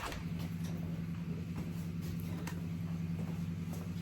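Chevrolet Chevelle's engine idling steadily, a low even hum, with a few light ticks and clicks over it.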